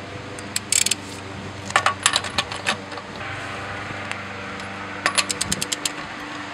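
Ratchet wrench clicking in short runs as it loosens a car's lug nut, with metal clinks of the socket on the nut; near the end comes a quick run of about ten clicks.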